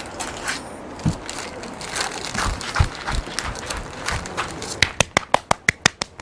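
Plastic food bags crinkling and rustling as food is taken out and handled, with scattered small clicks. Near the end comes a quick, even run of sharp clicks, about six a second.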